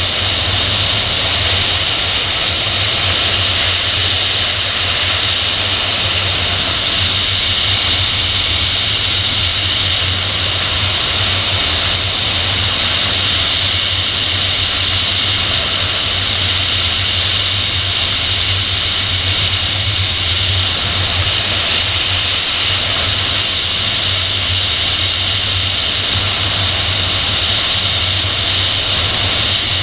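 Steady rush of airflow over a PIK-20 sailplane in gliding flight, striking the tail-mounted camera's microphone as wind noise: an even, unchanging hiss over a low rumble.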